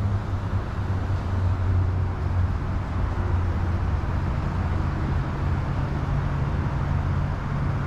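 Steady low hum of road traffic, with an even hiss over it.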